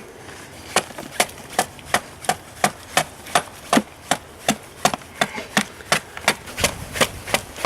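A blade chopping at wood in quick, light strokes, about three a second, working a piece of wood down into a plate.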